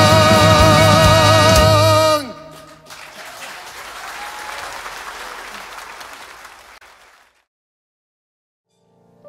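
The closing held note of a swing song, sung with vibrato over the band and cut off sharply about two seconds in. Audience applause follows and fades away, then a short silence, and a piano starts near the end.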